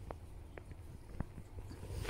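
A few light, separate clicks and taps, about four in two seconds, over a low steady hum.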